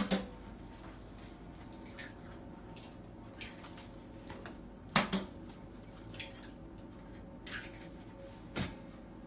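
Eggs being tapped and cracked against hard kitchen edges for frying: a few sharp knocks and clicks, the two loudest about five seconds apart, with a smaller one near the end.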